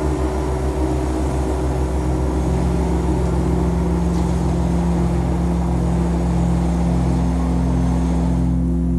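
Fire organ (pyrophone) sounding a loud, sustained low drone of several held tones. From about halfway, one of the low tones pulses about every two-thirds of a second. A rushing hiss above the drone drops away near the end.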